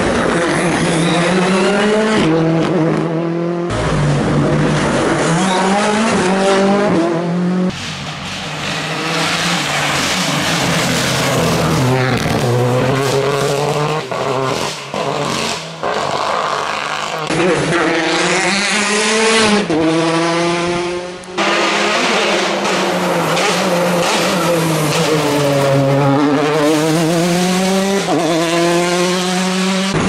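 Rally car engines revving hard as cars pass one after another, the pitch climbing through each gear, breaking at the shifts and dropping when the driver lifts and brakes.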